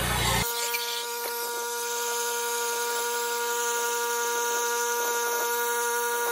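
Gas-engine 4 GPM pressure washer running, played fast-forward so that its engine sound becomes a steady high-pitched whine like a power tool. The whine starts about half a second in.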